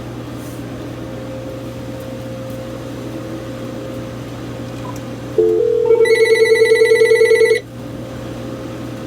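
Uniden EXAI7980 cordless phone's electronic ringer sounding an incoming call: a short two-note chirp about five seconds in, then a loud, fast-warbling ring for about a second and a half, over a steady low hum.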